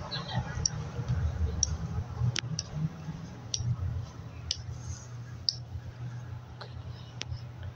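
Handheld phone being moved about: low rubbing handling rumble with about nine light, sharp clicks at irregular intervals.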